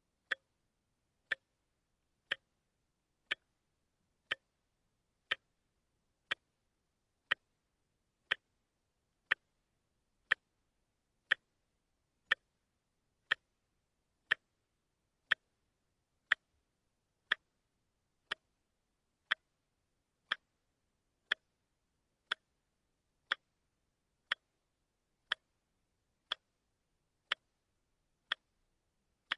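Watch ticking steadily, one sharp tick a second, the pace of a quartz movement.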